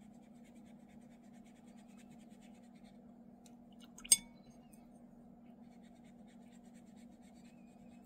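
Faint scratching of a paintbrush laying watercolour paint onto paper over a steady low hum, then a single sharp clink about four seconds in.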